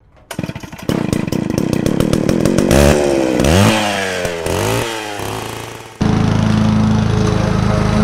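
A small petrol engine fires in a quickening run of pops, then is revved up and down several times and fades. About six seconds in it cuts abruptly to a Honda self-propelled lawn mower's engine running steadily.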